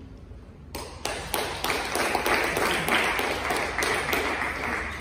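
A small group clapping, starting about a second in, then fading out near the end.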